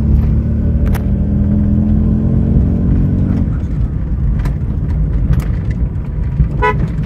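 Old Nissan saloon's engine running under way, heard from inside the cabin; its steady engine tone drops away about three and a half seconds in, leaving a low rumble. The car is on CNG, whose setting the owner says is off, making it run choked. Near the end the car's horn gives one short toot.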